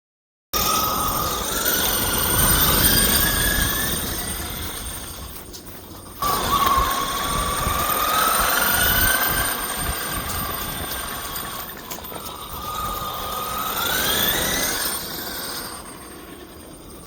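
1/5 scale RC car's motor and drivetrain whining as it drives off-road, the pitch rising as it speeds up and falling away as it slows, three times, over rough rumble from the wheels on the ground.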